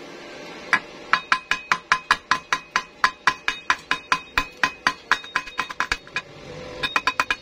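Steel chipping hammer tapping rapidly at a fresh weld bead on square tube, knocking the slag off, about five sharp metallic clinks a second with a ringing tone from the struck metal. There is a short pause, then quicker, higher-ringing taps near the end.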